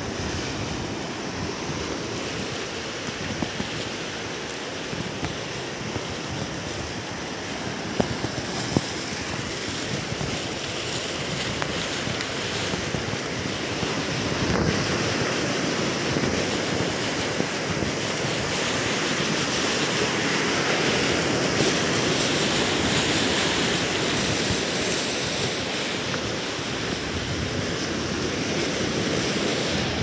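Sea surf washing continuously onto a shallow sandy shore and rock revetment, swelling louder in the second half, with wind buffeting the microphone. Two short sharp knocks about eight seconds in.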